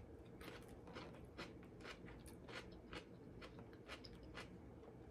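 Faint close-up chewing of a bitten-off mouthful of pickle: soft crunching clicks, a few a second, in otherwise near silence.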